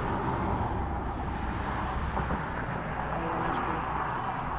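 Steady rumble of road traffic from the highway beside the bridge, with low wind noise on the microphone.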